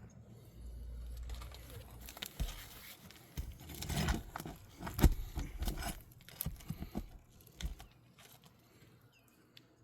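Irregular clicks, knocks and rattles of small hard objects being handled, busiest in the middle and loudest about five seconds in, then dying away.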